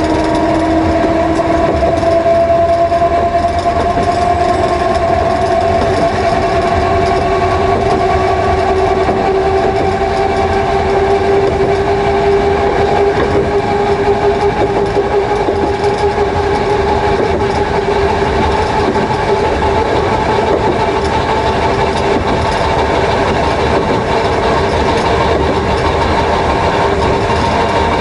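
The nose-suspended drive of a Jōmō Electric Railway Deha 101, its four Shibaura SE-132B traction motors and gears, whining loudly under power while climbing a steady grade, heard inside the car. The whine rises slowly in pitch as the car gathers speed and levels off in the last several seconds.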